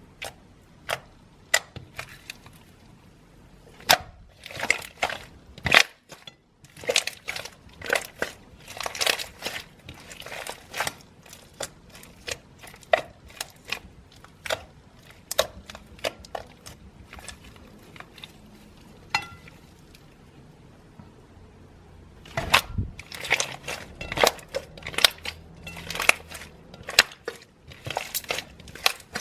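Slime being squeezed and poked by hand, giving irregular sharp pops and clicks, with a quieter lull a little past the middle.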